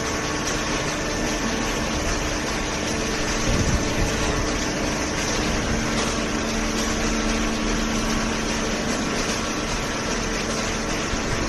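Hydraulic cardboard baler running, its hydraulic pump and motor giving a steady machine noise with a hum. A further tone comes in about halfway through and fades a few seconds later.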